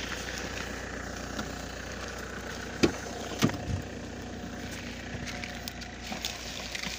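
A car's rear door being opened: two sharp clicks from the door latch a little over half a second apart, about three seconds in, over a steady low hum.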